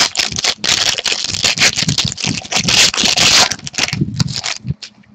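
Wrapper of a pack of hockey trading cards being torn open and crinkled: a dense crackling that stops about four and a half seconds in, leaving a few faint ticks.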